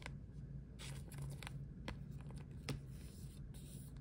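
Faint handling of plastic card protectors as trading cards are slid into them: soft scraping and crinkling with a few light clicks.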